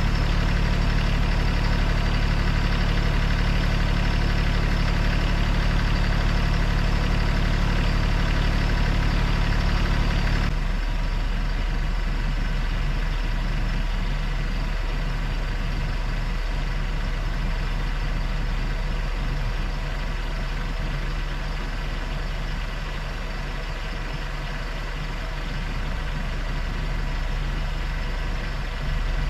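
A vehicle engine running steadily. About ten seconds in, the sound shifts abruptly to a slightly quieter, lower-level running.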